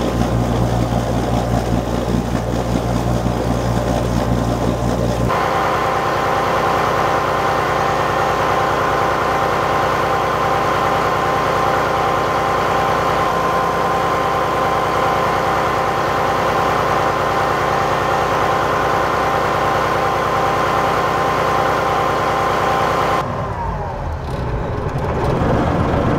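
Yanmar marine diesel engine idling. At first it is heard from the hull side, with a deep hum and cooling water splashing out of the exhaust outlet. About five seconds in it is heard close up in the engine room, a steady mechanical running sound with steady high tones. Near the end it is quieter and duller, heard at the helm.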